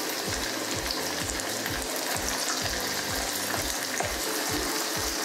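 Hot oil sizzling and crackling steadily as breaded chicken pieces deep-fry. A steady low beat of background music runs underneath.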